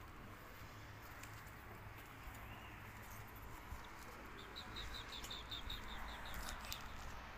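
A small bird chirping: a quick run of about a dozen short high notes, about six a second, starting a little past the middle, over a steady faint background hiss.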